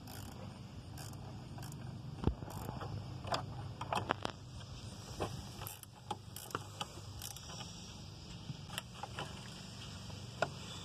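Scattered light clicks and knocks of tools and parts being handled, over a low steady rumble, with one sharper knock about two seconds in.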